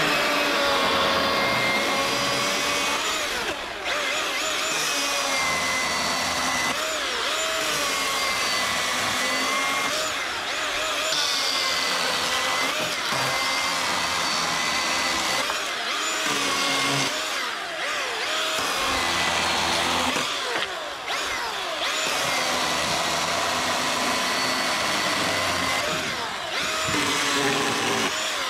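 Milwaukee M18 Fuel 2727 16-inch cordless chainsaw cutting dead branches. The electric motor's whine sags in pitch as the chain bites into the wood and climbs back between cuts, with several brief let-offs of the trigger.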